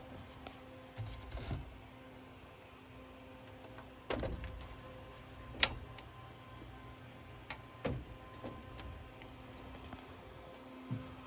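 Scattered mechanical clicks and knocks from the Pioneer PL-115D turntable, most likely being handled and operated, with louder ones about a second in, around four, around five and a half and around eight seconds. Underneath is a steady electrical hum from the hi-fi system, and no music is playing.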